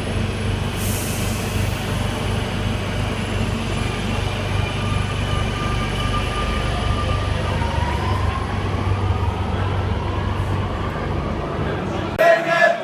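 A vehicle running: a steady low rumble with faint whining tones, a brief hiss just after the start and a whine rising about eight seconds in. It cuts off near the end, replaced by voices singing or chanting.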